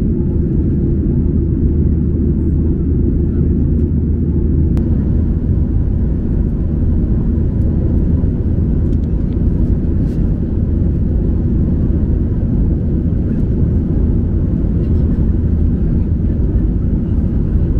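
Steady low roar inside the cabin of a Boeing 737-800 in flight above the clouds: the noise of its CFM56 engines and the airflow over the fuselage.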